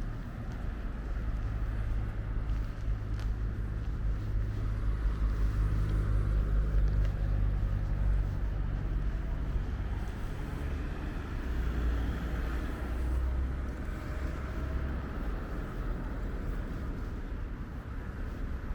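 Low engine rumble of a passing motor vehicle, swelling for several seconds and again a little past the middle, over a steady faint outdoor hiss.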